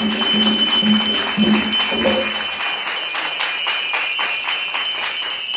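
Umbanda ceremonial music: jingles or a tambourine shaken in a steady rhythm of about four strokes a second, over a low repeated note for the first half. The jingling stops abruptly near the end.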